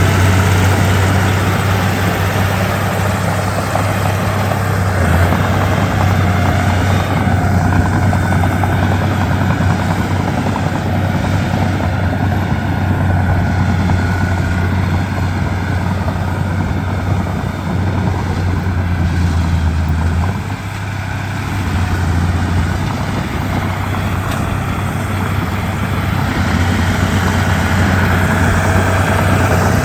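Komatsu D31P bulldozer's diesel engine running steadily at work, a deep low drone that dips briefly about two-thirds of the way through before picking back up.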